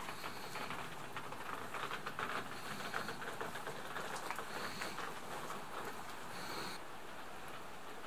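Light, irregular patter of dripping rainwater on wet ground and sheet-metal roofs, busiest in the middle. A faint short high note recurs every couple of seconds.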